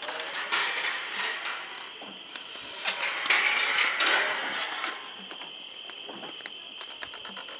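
Rustling and clicking from footsteps and from the handheld camera being moved, loudest about half a second in and again around three to four seconds in, over a steady high chirring of night insects.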